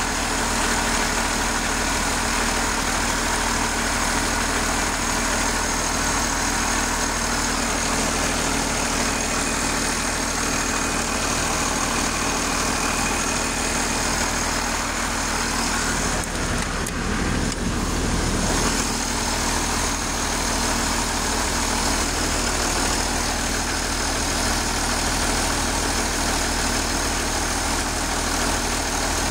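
International Harvester 1086 tractor's turbocharged six-cylinder diesel running steadily, started after a torque amplifier replacement while its hydraulic pressures are checked. There is a short change in tone about two-thirds of the way through.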